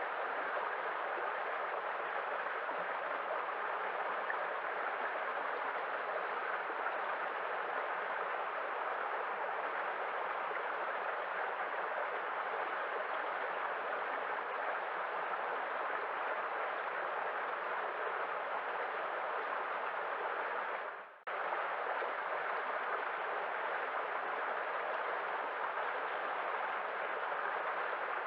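Waterfall rushing steadily, an even wash of falling water. About two-thirds of the way through it dips almost to nothing for a moment and comes straight back, like a loop splice in the recording.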